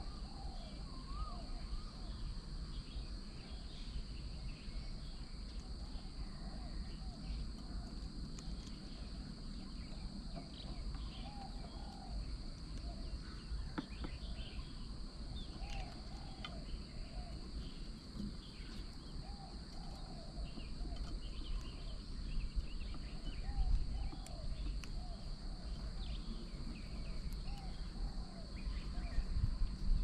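Outdoor birdsong: short, low, arched call notes come in small groups every few seconds, with scattered higher chirps. Behind them are a steady high insect drone and a constant low rumble.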